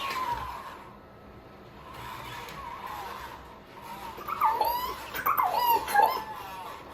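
LOVOT home robot vocalizing with a series of high, gliding, animal-like chirps and coos, loudest about four to six seconds in.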